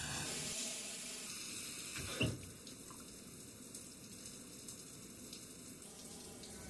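Water running steadily from a tap, with one short sharp sound about two seconds in.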